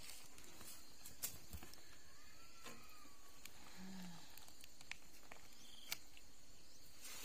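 Quiet background with a few light clicks and a soft low thump as a heavy woven bamboo basket holding a honeycomb is set down on a spring dial platform scale.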